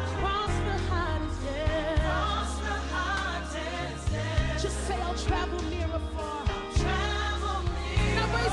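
A gospel song playing, with sung vocals over a steady deep bass line.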